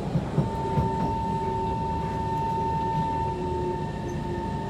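Kawasaki C151 metro train running along the track: a steady low rumble with a few knocks in the first second, and a steady high whine from its electric traction equipment from about half a second in.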